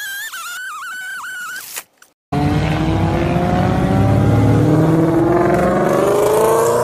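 A high, wavering pitched sound for the first two seconds, then a short gap. After that an engine starts loudly and runs for about five seconds, its pitch rising steadily as it accelerates, before cutting off abruptly.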